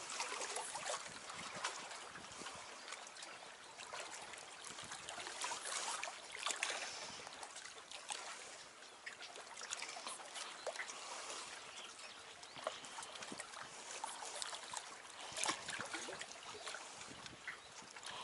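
Small waves of the lake lapping and trickling against shoreline rocks, with irregular little splashes and clicks.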